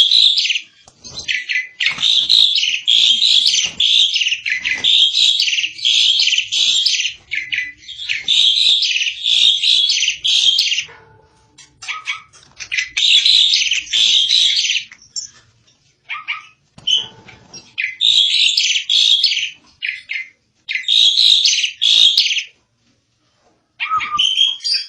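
Asian pied starling (jalak suren) singing loudly in long bouts of fast, harsh chattering phrases, with short pauses between bouts about eleven, fifteen and twenty-two seconds in.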